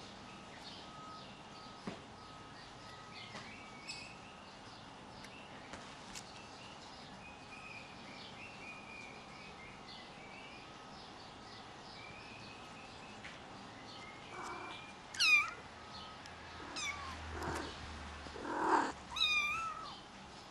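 Lynx hybrid kitten meowing: several loud, high meows in the last few seconds, the last one wavering. Before them there is only faint background.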